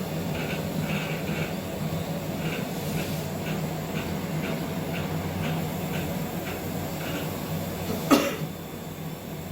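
A steady low mechanical hum, such as laboratory instrument fans or air conditioning, with faint scattered higher-pitched ticks. A single short, sharp cough comes about eight seconds in and is the loudest sound.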